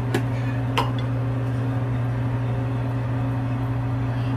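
Steady low hum with a faint hiss, like a kitchen appliance or fan motor running, with two short sharp clicks within the first second.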